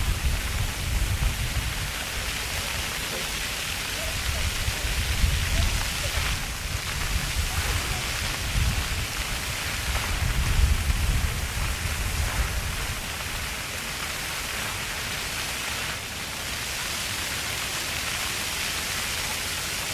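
Ground-level park fountain jets spraying, a steady hiss of falling, splashing water, with children's voices faint in the background. A low rumble comes and goes through the first twelve seconds or so.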